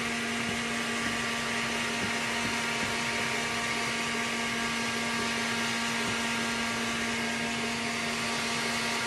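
Electric stand mixer running steadily, whipping egg whites toward stiff peaks: an even motor hum at one constant pitch.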